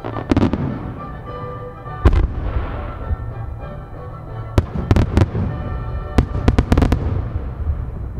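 Aerial firework shells bursting with sharp bangs: one near the start, a loud one about two seconds in, then a quick run of bangs in the second half, over music playing throughout.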